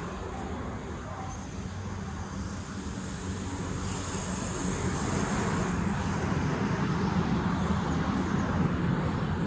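Train rumbling along the track, getting louder from about six seconds in, with a burst of high hiss around four to six seconds in.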